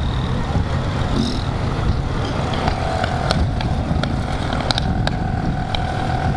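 Motorcycles riding in a group, engines running steadily at road speed with a heavy rumble of wind on the microphone. A steady tone joins about two and a half seconds in, and there are a few sharp clicks.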